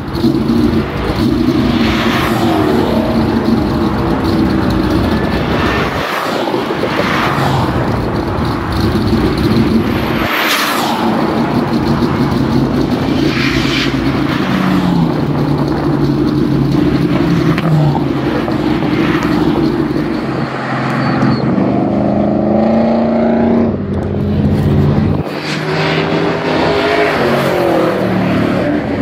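Car engine being driven hard on a race track, its note rising and falling, with brief drops several times as it shifts or lifts off, and wind buffeting over it.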